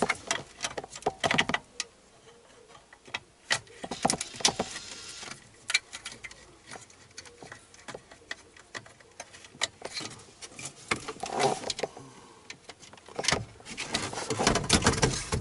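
Scattered clicks, taps and rustling from handling a factory car radio, its metal case and wiring knocking against the plastic dash opening as it is worked into place, with busier clusters near the end.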